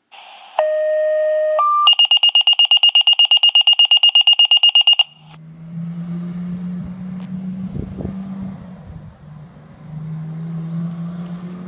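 Electronic alarm-style alert tones: a low tone for about a second, a short higher tone, then rapid beeping at about ten beeps a second that stops about five seconds in. After that a vehicle engine runs with a steady low hum, with a click and a thump partway through.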